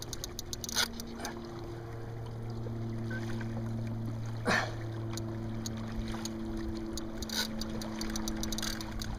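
Water lapping against a kayak hull, with a few brief splashes, the loudest about four and a half seconds in, over a steady low hum.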